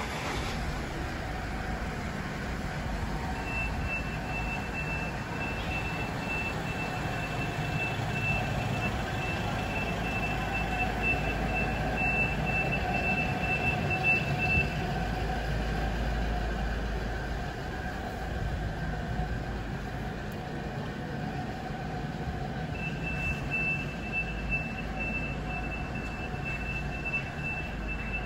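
A van's engine running close by, with its high-pitched reversing alarm beeping repeatedly for about ten seconds, stopping, and starting again near the end.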